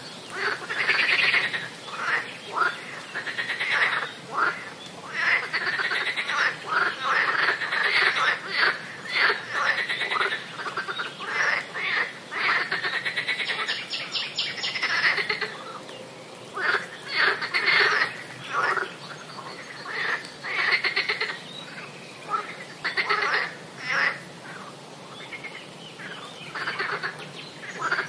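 Swamp ambience: a dense chorus of frogs croaking, many short calls overlapping one another and coming in bouts with brief lulls between.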